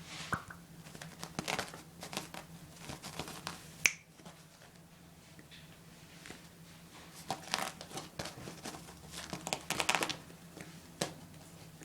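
Poodle puppy's hiccups: short sharp clicks a few seconds apart, a loud one about four seconds in, with quicker scuffling and rustling clicks around eight and ten seconds in as it moves about.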